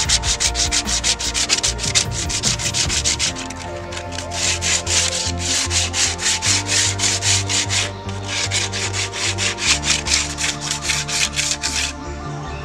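Sandpaper rubbed by hand across bamboo seat slats in quick back-and-forth strokes, about five a second, with a brief pause partway and easing off near the end.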